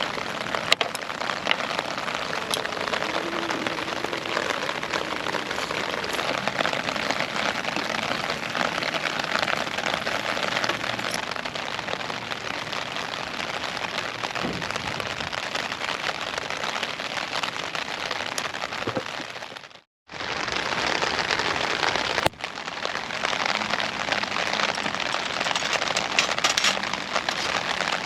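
Wood fire in a small solo fire stand crackling and sizzling steadily, a dense patter of small pops. It cuts out briefly about two-thirds of the way through, and there is one sharp click a couple of seconds later.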